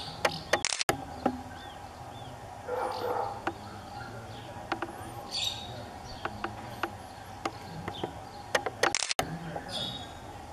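Small birds chirping now and then over a faint steady hum, with a few sharp clicks about half a second in and again near the end.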